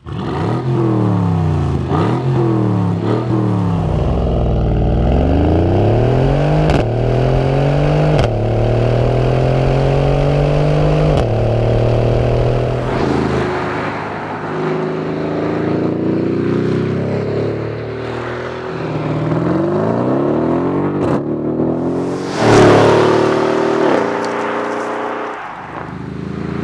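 Mercedes-AMG GLE 63 S Coupe's twin-turbo V8 through its exhaust. It opens with a few quick revs, then accelerates hard, the pitch climbing and dropping sharply at each upshift. Later come more acceleration runs, with the loudest burst about three-quarters of the way through.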